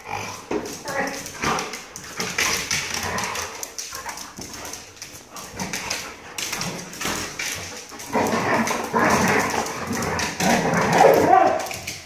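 A golden retriever, a yellow Labrador and another dog playing rough together: whining and barks over scuffling and short taps, getting louder and busier about two-thirds of the way through.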